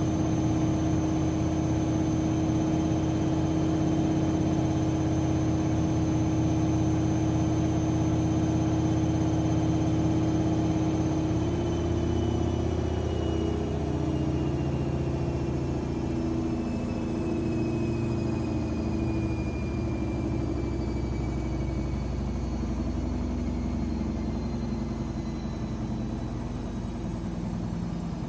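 AEG Lavamat 6610 washing machine spinning fast; from about halfway through the motor's whine falls slowly in pitch and the sound eases off as the drum slows down.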